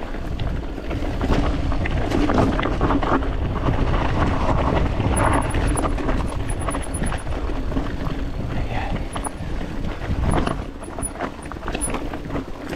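Wind buffeting the microphone of a camera riding on a mountain bike descending a rough dirt trail, with tyres running over loose rocky ground and the bike giving frequent clicks and knocks over the bumps.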